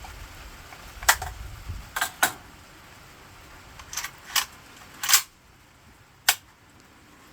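A series of sharp metallic clicks and clacks, seven in about five seconds with one slightly longer clack near the end, typical of an AKM-pattern rifle's action and magazine being handled after shooting.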